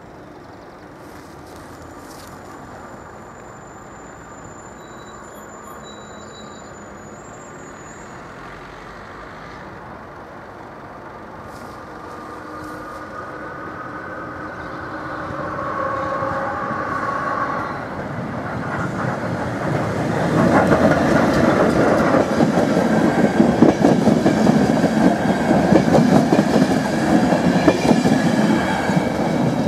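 A passenger train approaching and then passing close by at speed: the sound of its wheels on the rails swells from about halfway and becomes a loud, dense rumble and clatter as the coaches pass through the last ten seconds. Brief pitched tones sound as it nears.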